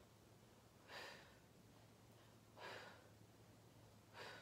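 A woman breathing out sharply through the mouth three times, about once every second and a half, on the effort of each crunch. The breaths are faint.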